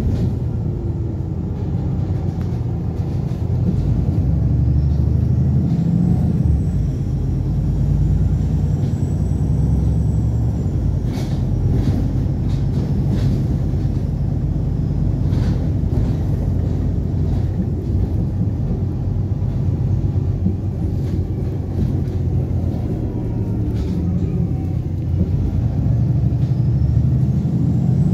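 Onboard engine and road rumble of a VDL SB200 Wright Pulsar 2 single-deck bus under way, with the engine note rising and falling as it drives. A few sharp rattles or knocks come in the middle.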